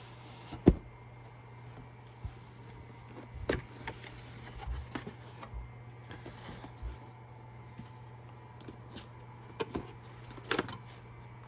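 Scattered clicks, taps and rustles of a product box and its packaging being handled and opened, one sharp knock less than a second in, over a steady low hum.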